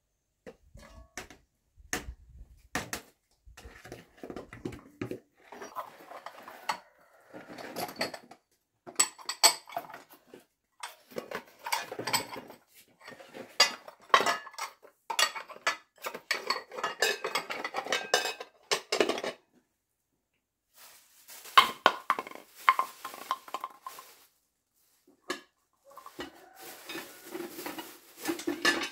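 Dishes, pots and utensils being handled: irregular clatter of knocks and clinks, falling quiet twice for a moment in the second half.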